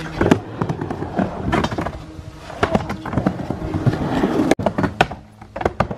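Skateboard rolling back and forth on a mini ramp: wheels rumbling on the ramp surface, with many sharp clacks as the board turns and hits.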